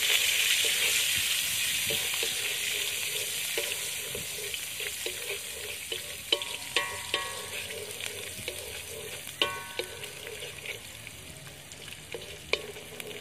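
Anchovies (ikan bilis) sizzling in hot oil in an aluminium wok, frying until a little crispy, while a wooden spatula stirs them and scrapes the pan. The sizzle starts loud and dies down gradually.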